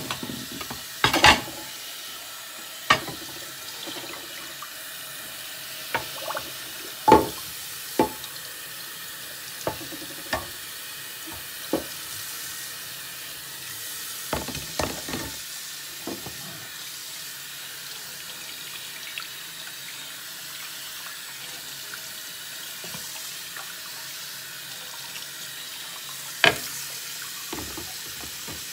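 Kitchen faucet running steadily into a stainless steel sink while a pot and dishes are washed. Scattered sharp knocks and clatters of the pot and dishes against the sink come mostly in the first half, then the water runs alone until one loud knock near the end.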